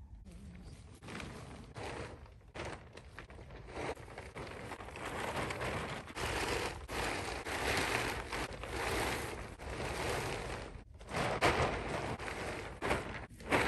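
The tarp cover of a Harbor Freight CoverPro 10 x 17 carport crackling and rustling as it is dragged over the metal pole frame. It is loudest in the middle, with a few sharper crackles near the end.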